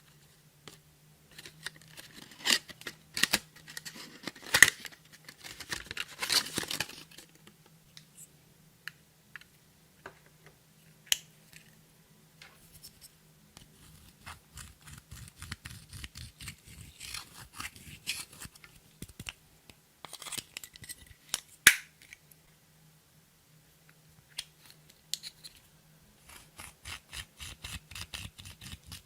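Clear slime being pressed, stretched and folded by hand, making irregular sticky clicks and pops, with quicker runs of clicks in places and a sharp snap near the end. A faint steady hum runs underneath.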